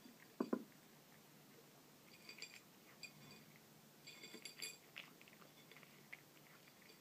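Brown tabby kitten crunching dry kibble, with small crisp clicks and light clinks of the pieces against its plate. Two sharper knocks come about half a second in.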